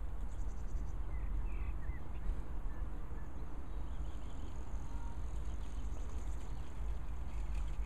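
Outdoor ambience: a steady low rumble with a few faint, scattered bird chirps.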